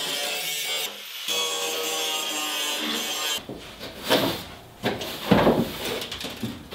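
Background guitar music, then about halfway through a cut to a stiff broom sweeping the bare ribbed metal floor of a van in quick, scratchy strokes.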